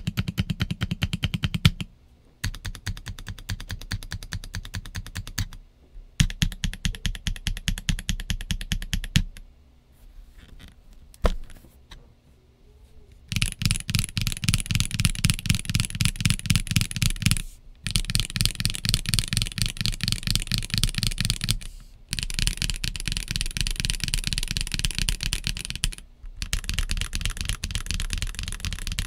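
Stock Kit Adam R2 Lego-brick mechanical keyboard with S² linear switches and white/grey OEM-profile PBT keycaps being typed on. The typing comes in fast runs of keystrokes, each a few seconds long with short pauses between them, and there is a lighter, sparser stretch about ten seconds in.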